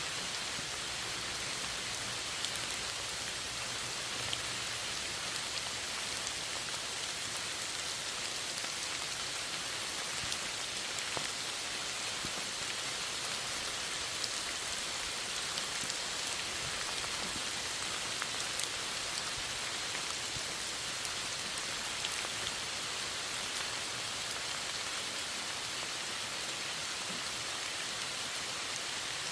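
Steady rain falling, an even hiss with scattered distinct drop ticks.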